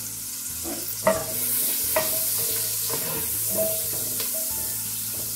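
Whole garlic cloves sizzling in melted butter and olive oil in a pot while being stirred with a wooden spatula. The spatula knocks against the pot a few times.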